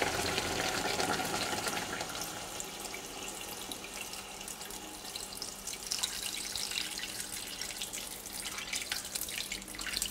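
Fresh coconut water pouring in a steady stream from a bowl into a pot of braised pork intestine, splashing onto the pieces and into the sauce.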